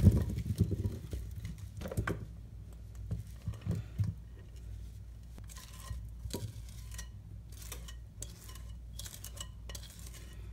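Sweet potato chunks tumbling out of a glass mixing bowl into a glass baking dish: a burst of soft thuds at the start, with more falling about two and four seconds in. Later a spoon scrapes and taps against the glass bowl with light clicks.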